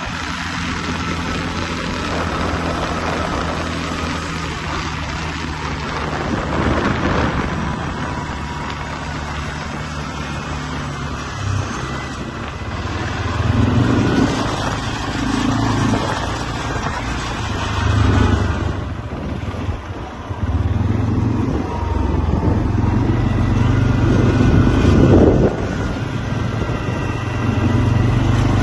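Quad bike (ATV) engine running as it is ridden, getting louder and easing off several times as the throttle opens and closes.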